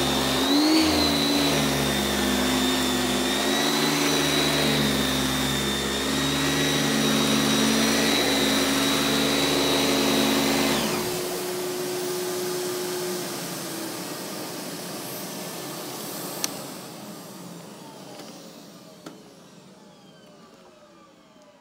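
Kenmore canister vacuum with its electric power nozzle running on carpet, a steady motor whine that wavers slightly in pitch. About halfway through it is switched off and the motor winds down, the whine falling and fading over several seconds. Two sharp clicks follow near the end.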